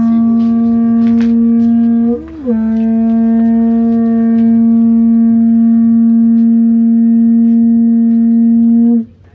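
Conch shell trumpet blown as a luau call: one loud, steady horn note. It breaks briefly with a scoop in pitch about two seconds in, then is held again for about six and a half seconds before cutting off.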